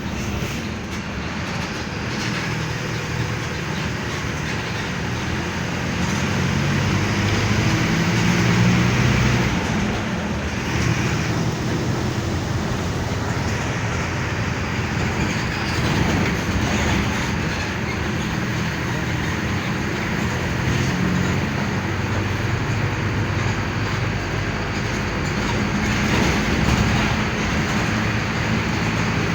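Mercedes-Benz OF-1519 BlueTec 5 bus's front-mounted diesel engine heard from inside the moving bus, its pitch rising and falling with engine speed over road and body-rattle noise. The engine gets louder twice, about six seconds in and again near the end.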